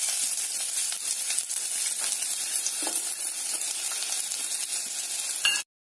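Chopped onions sizzling in hot oil with mustard seeds in a kadhai: a steady hiss with a few faint clicks, cutting off suddenly near the end.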